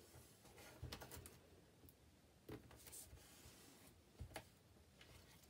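Near silence with a few faint taps and rustles of a thin card strip and an acetate sheet being handled and pressed down on a table.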